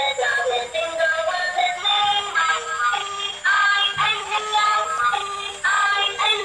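Tinny electronic tune with a synthesized singing voice, with no bass, played through the small speaker of a battery-powered light-up toy train.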